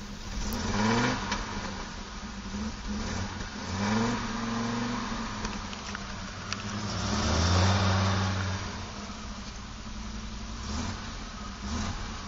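Audi Coupé GT 5E's 2.2-litre five-cylinder engine heard from inside the cabin while driving, its note rising several times as the car pulls and accelerates, over road noise.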